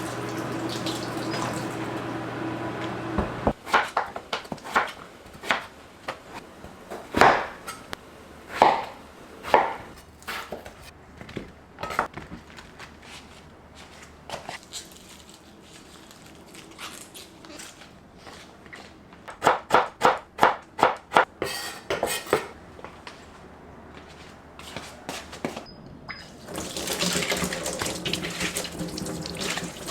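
Kitchen work sounds: dishes and utensils clinking and knocking, with a quick run of about seven knocks about two-thirds of the way in. A steady hum plays for the first few seconds and stops suddenly. Water starts running from a tap near the end.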